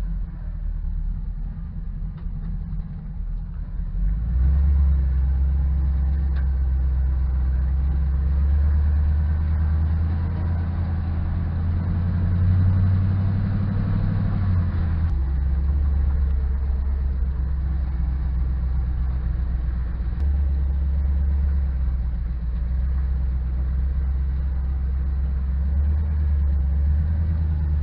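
A 1972 Chevy truck's swapped-in 5.3-litre LS V8 pulling the truck along at a low, steady drone. It gets louder about four seconds in, climbs slightly in pitch, then drops back suddenly about halfway through, and rises and falls a couple more times later.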